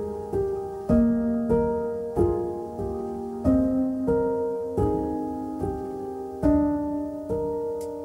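Background music: a slow solo piano piece, a note or chord struck about every two-thirds of a second and left to ring and fade.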